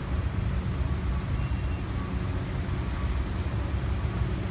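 A line of cars driving past, a steady low rumble of engines and tyres.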